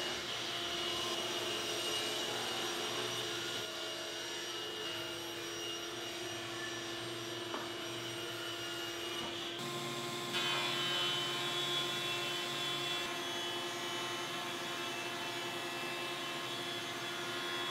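Table saw running steadily as it rips the cracked edge off a cherry board. About ten seconds in the sound changes abruptly to a jointer running with a steady whine as a board is fed across its cutterhead.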